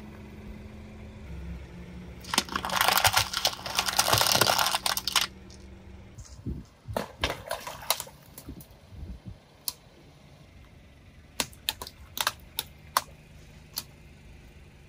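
Car tyre rolling over and crushing brittle objects: a dense run of crunching and cracking for about three seconds, followed by scattered sharp cracks and clicks. A low steady hum sits under the first half and stops about six seconds in.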